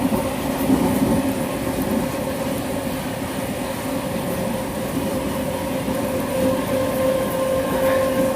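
Mafersa/Hitachi Series 1700 electric multiple unit's traction motors whining steadily as the train runs, over the rumble of wheels on the track. The whine grows louder near the end.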